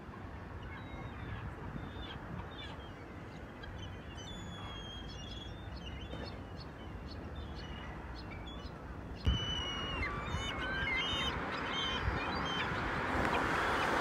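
Seagulls calling over a steady background rush, with scattered short cries at first. About nine seconds in the sound gets louder and the cries become more frequent.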